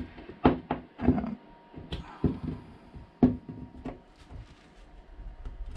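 Small, sharp clicks and taps, about eight to ten at irregular spacing, from steel pliers and plastic model railway track as the track is pried up and pulled off the baseboard.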